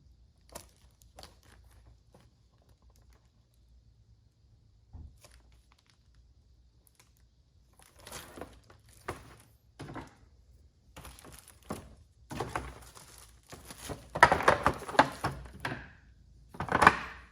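Handling noise from trim pad tools and their plastic packaging: scattered clicks and knocks with crinkling, growing louder and busier in the last few seconds.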